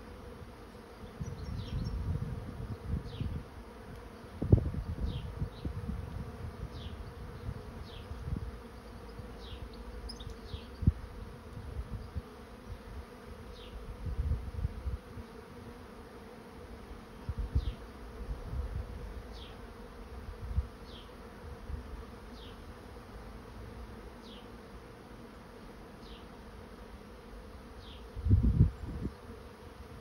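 Swarm of honey bees humming steadily in the air as they fly around and move into a swarm trap. Irregular low gusts of wind rumble on the microphone, loudest about four seconds in and near the end.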